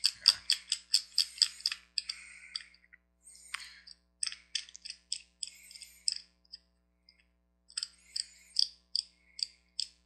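Master Lock 1588D combination padlock's dial being turned by hand, its detents clicking at about five clicks a second in three runs with short pauses between, as the combination is dialled in.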